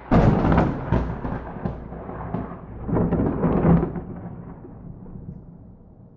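Thunder from a close lightning strike, with no rain: a sharp crack, then a rolling rumble that swells again about three seconds in and slowly fades.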